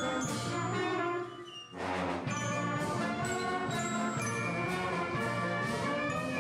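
Wind band playing, with clarinets and brass together in full ensemble. The music briefly drops away about a second in, then comes back with a sharp hit and carries on at full strength.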